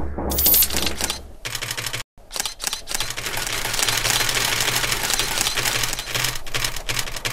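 Many DSLR camera shutters firing in rapid bursts, a dense overlapping clatter of clicks, with a brief gap about two seconds in.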